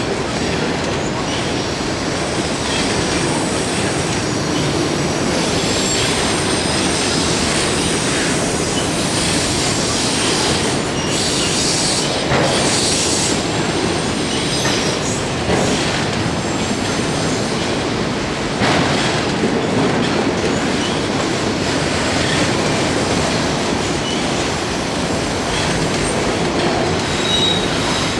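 Freight train cars rolling steadily past, with continuous wheel-on-rail noise, a faint high wheel squeal and occasional knocks from wheels over rail joints.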